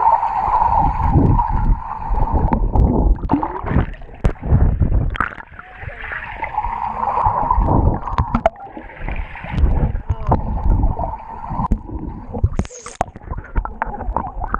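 Water sloshing, gurgling and splashing around a camera bobbing at the surface, muffled each time it dips under and splashing as it breaks out. A steady high hum runs underneath and stops about twelve seconds in.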